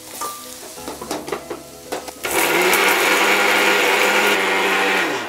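Clatter of a steel mixer-grinder jar being lidded and set in place, then an electric mixer grinder starts about two seconds in and runs loudly and steadily for about three seconds, dry-grinding roasted coconut and whole spices without water. Near the end it is switched off and the motor winds down.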